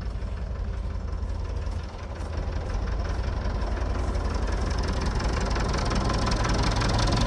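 Tractor engine running steadily with a low rumble, growing gradually louder through the second half.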